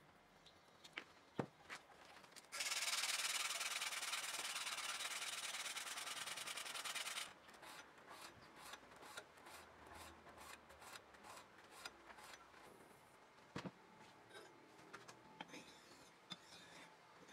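Steel knife blade, cut from a car leaf spring, rubbed by hand with a pad: a steady loud scrubbing for about five seconds, then softer scattered scrapes and clicks.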